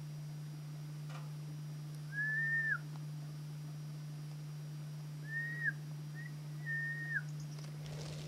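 Three short, clear whistles at one steady pitch, each dipping at its end: one about two seconds in, then two close together later. A steady low hum from the camera lies underneath.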